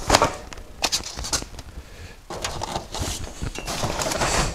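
Cardboard shipping boxes being lifted and stacked on a workbench: a few sharp knocks in the first second and a half, then a steadier scraping and rustling of cardboard.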